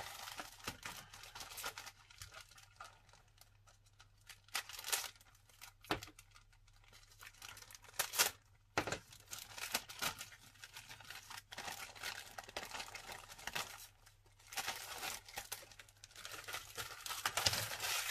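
Thin clear plastic bag crinkling as hands open it and pull a plastic model-kit sprue out of it: irregular rustling with a few sharper crackles.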